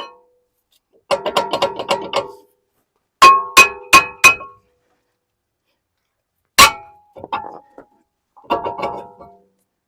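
Old front brake rotor being knocked and worked off the hub: ringing metallic clanks in several clusters, including four sharp strikes in quick succession a few seconds in and one loud single clank later.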